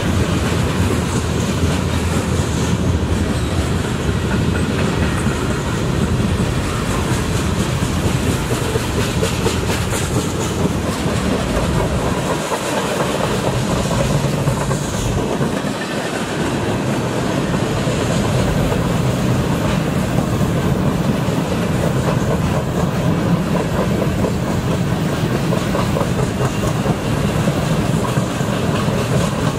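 Freight cars of a passing manifest train (covered hoppers, a boxcar and centerbeam flatcars) rolling by close up: a loud, steady rumble of steel wheels on rail with clacking at the rail joints. The deep part of the rumble eases briefly about halfway through.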